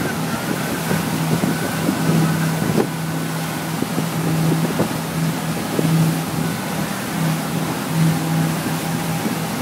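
Carver cruiser's engine running with a steady hum under the stern, over the rushing, churning water of its wake.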